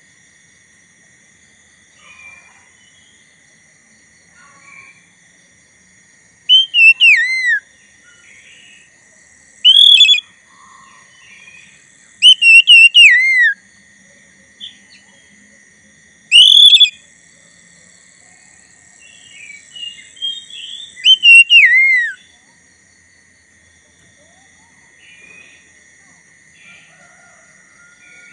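Black-breasted oriental magpie-robin singing: about five loud bursts of sharp, downward-sliding whistled notes, with softer chirps between the phrases. A faint steady high tone sounds underneath.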